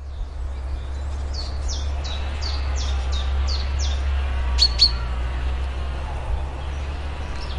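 A bird chirping: a run of about seven quick chirps falling in pitch, then two sharp high notes a moment later, over a steady low hum.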